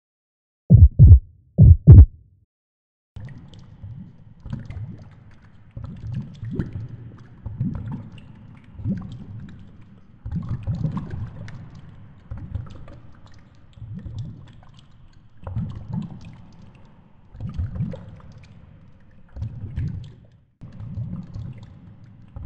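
A heartbeat sound effect: two loud lub-dub double thumps about a second in. Then come quieter, low, uneven rumbling surges about once a second with faint crackling, the underwater sound picked up by the camera lowered into deep water.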